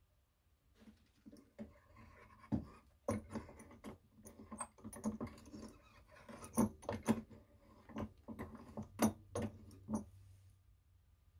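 Hands working the metal parts of a 1940s Peter Pan Model 1 sewing machine: irregular light clicks and knocks with rustling, thickest in the middle and stopping about ten seconds in.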